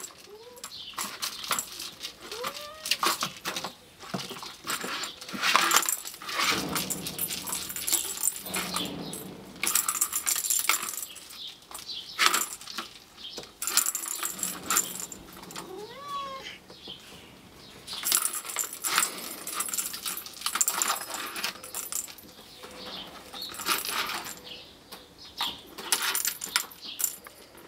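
A plastic ball-track cat toy being batted by kittens: the ball rattles and clicks around the circular track in repeated bursts, with paws tapping the plastic. Now and then a short, rising mew from one of the Norwegian Forest Cat kittens.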